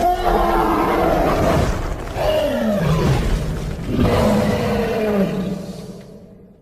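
Sinoceratops dinosaur sound effect: a deep roar in three long calls, each falling in pitch, the last one fading out.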